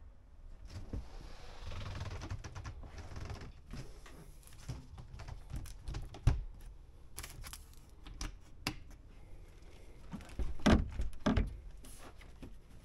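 Clicks and knocks of a motorhome's interior doors being handled: the plastic shower cubicle doors, then a wooden door's latch, with a louder run of knocks and rattles about ten seconds in.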